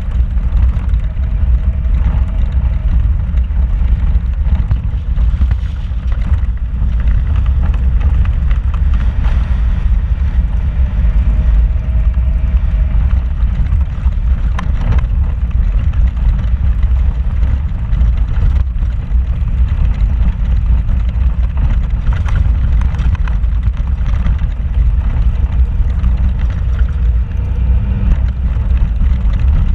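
A vehicle driving slowly over a rocky dirt trail, heard from inside the cab: a steady low rumble of engine and tyres, with a few short knocks and rattles as it goes over the rough ground.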